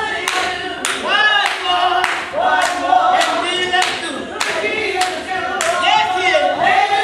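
Church congregation singing a gospel song together, clapping hands on the beat about twice a second.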